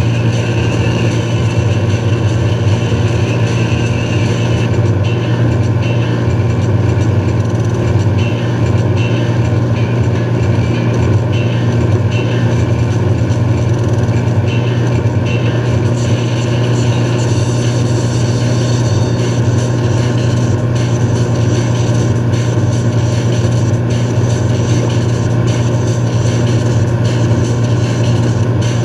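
Motorboat's inboard engine running steadily under way, with the churning wake rushing and splashing behind the hull.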